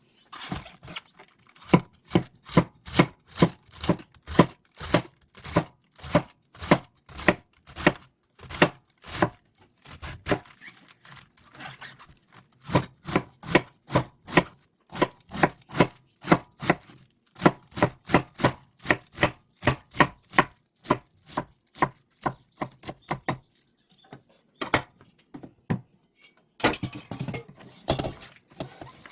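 Kitchen knife chopping on a cutting board in steady, even strokes about two a second, pausing twice, with a short burst of denser noise near the end.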